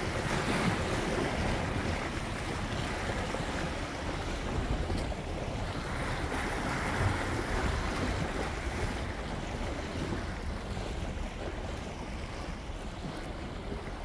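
Ocean surf washing against a rocky seawall, swelling and easing, with wind buffeting the microphone.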